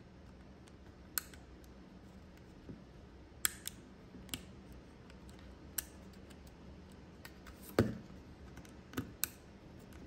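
Small sharp plastic clicks and taps of a SIM card in its adapter being worked into the SIM slot of a pocket Wi-Fi hotspot, a handful of clicks at irregular intervals over a faint steady hum.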